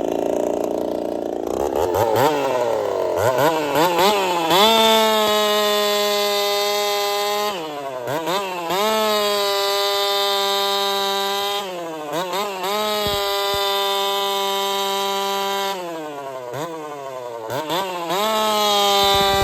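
Two-stroke chainsaw revving up from idle about two seconds in to a steady high-pitched full-throttle scream while cutting wood, its speed dipping briefly three times and climbing straight back.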